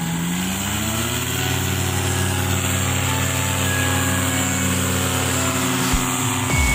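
Paramotor engine revving up, rising in pitch over about the first second, then running steady at high power through the take-off run and lift-off. A brief thump sounds near the end.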